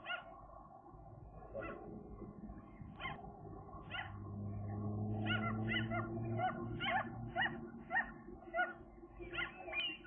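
Gulls calling: short, pitched cries, a few spaced out at first, then coming quickly, about two a second, from about halfway through. A low steady hum sets in underneath about four seconds in.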